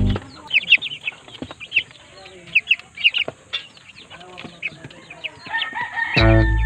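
A flock of broiler chickens peeping and clucking in many short, high chirps. Loud guitar music cuts in near the end.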